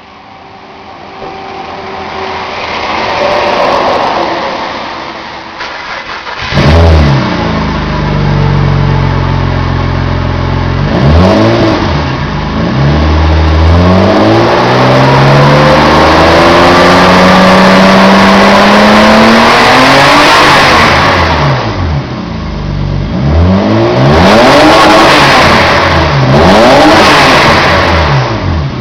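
Exhaust note of a 1992 BMW E34 525i's 2.5-litre inline-six. The engine runs and gets louder, then from about six seconds in is revved hard several times: short blips, one long climb and fall, and a run of quick revs near the end.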